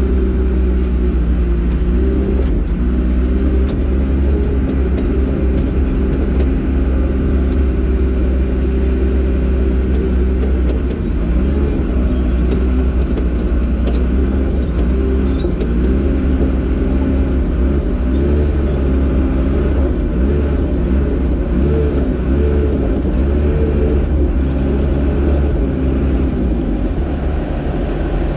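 Crawler bulldozer's diesel engine running loud under load as the dozer tracks forward pushing soil with its blade. The engine note holds steady at first, then wavers up and down through the middle stretch before settling again.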